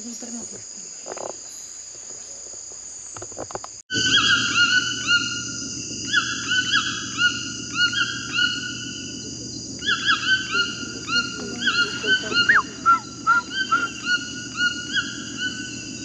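Steady high drone of rainforest insects. After a cut about four seconds in, a chorus of wild animal calls takes over: many short, high, pitched calls repeated several times a second and overlapping, over a steady low hum.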